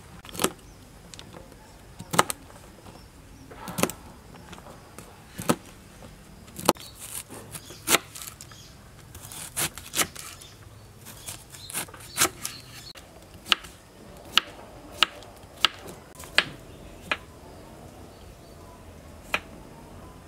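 Kitchen knife cutting vegetables on a wooden cutting board: irregular sharp knocks of the blade meeting the board, roughly one a second and sometimes in quick pairs, thinning out near the end.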